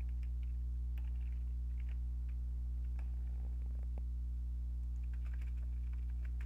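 Typing on a computer keyboard: a few scattered key clicks, over a steady low hum.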